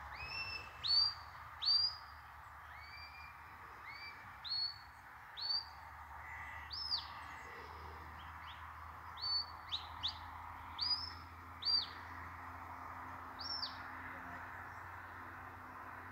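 Shepherd's whistle giving commands to a working sheepdog: short, high, pure notes that rise and fall, blown in clusters of two or three.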